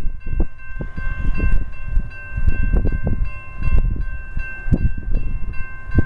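Railroad grade-crossing warning bell ringing steadily while the crossing gate arm rises, the end of the warning cycle after a train has cleared. A strong, uneven low rumble runs underneath.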